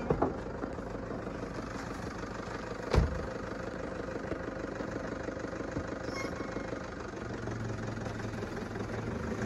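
Toyota Hilux pickup engine idling steadily, with a single thump of a door shutting about three seconds in.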